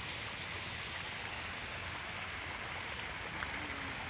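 Steady, even rush of falling water from a garden waterfall into a pond.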